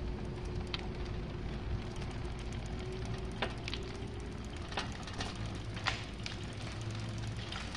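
Fat-tire electric bike rolling slowly on concrete: a steady low rumble with a faint steady hum, and a few scattered sharp clicks and rattles from the bike.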